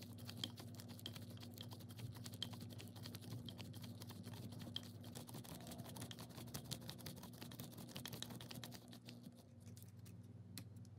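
Rapid light clicking of a hand screwdriver turning small screws into the painted metal housing of a 1927 Black & Decker drill, thinning out near the end.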